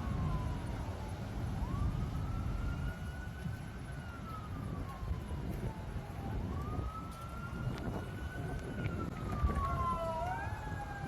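Emergency vehicle siren wailing, its pitch rising and falling slowly every few seconds over a steady low background noise, with a second siren joining near the end.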